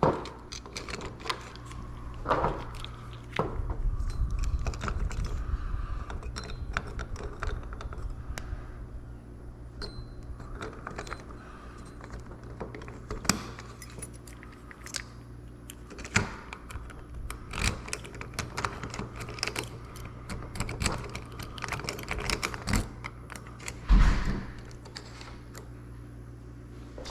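Keys and small metal lock parts clicking and jingling, in irregular light clicks, as a lock is worked on during a rekey, over a steady low hum. A heavier thud comes near the end.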